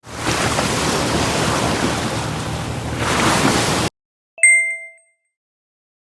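Noise of sea waves and wind that cuts off suddenly, followed half a second later by a single bright electronic chime that rings briefly and fades.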